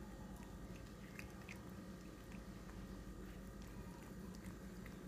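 Cat chewing dry kibble from a bowl: faint, irregular crunches.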